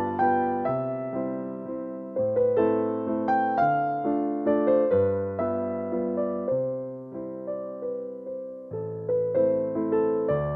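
Background music: a piano melody over low bass notes, each note struck and fading away.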